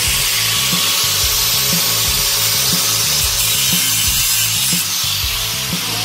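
Background music with a steady beat and a moving bass line, under a loud, even hiss.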